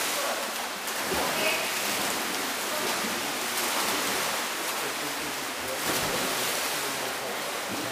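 Water splashing in an indoor pool during water polo play: a steady, even wash of noise, with a few faint, brief voices.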